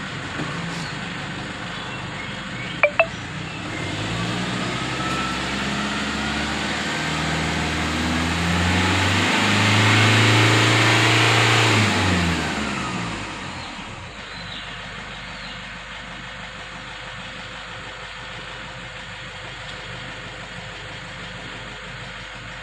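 Toyota Innova diesel engine revved gradually higher, held at the top for a few seconds, then let back down to idle about thirteen seconds in; the revving speeds up a diesel purging carbon clean. A sharp click about three seconds in.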